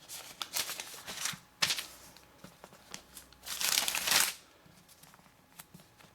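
Thin phone-book pages being flipped and riffled, rustling in several bursts, the longest and loudest about three and a half seconds in, with a short sharp snap of paper at about a second and a half.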